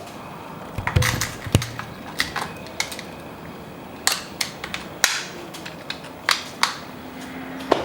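Scattered sharp clicks and light knocks of small parts being handled and fitted onto a mountain bike, with a cluster about a second in and a few more later on.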